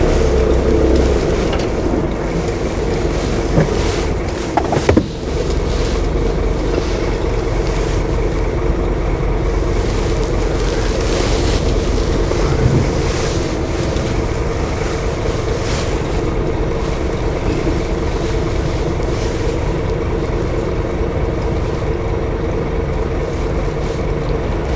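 Steady drone of a heavy goods vehicle's diesel engine and road noise heard from inside the cab as the truck moves slowly through town. A couple of short knocks come about four and five seconds in.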